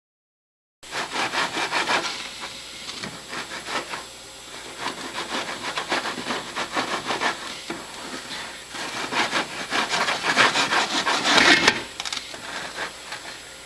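Pan of stovetop popcorn shaken back and forth on an electric coil burner: rapid, rhythmic scraping strokes, several a second, starting about a second in. Near the end the shaking stops and a quieter hiss of the hot pan is left.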